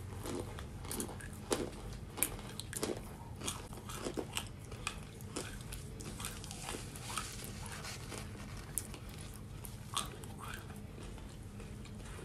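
Baked cornstarch chunks crunching as they are bitten and chewed, in irregular sharp crunches a few a second, thinning out in the second half.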